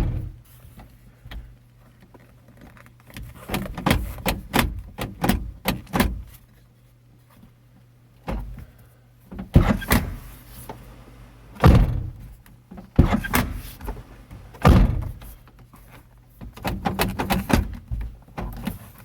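Jeep Comanche door being tried out after its lock and handle rods were repaired: quick runs of clicks from the latch, lock and handle, and four heavy thuds of the door being shut, spaced a second or two apart through the middle.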